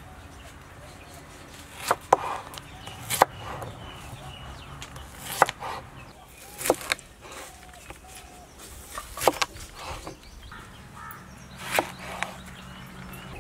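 Large kitchen knife slicing through a cucumber and striking a wooden chopping board: sharp single chops, unevenly spaced a second or two apart.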